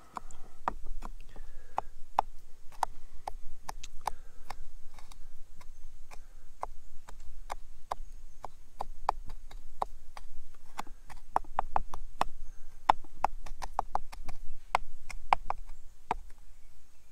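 A knife chopping on a cutting board: a long run of sharp taps, irregular at about two to four a second, quickening into faster runs partway through.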